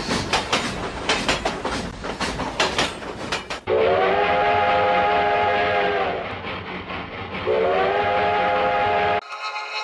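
Train wheels clattering over rail joints, then two long blasts of a multi-note train whistle, the first longer than the second. The whistle cuts off suddenly near the end.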